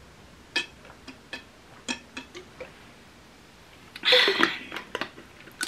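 Drinking from a plastic bottle: a handful of soft swallowing clicks, then a short, louder breathy sound about four seconds in as the bottle comes down and the cap is handled.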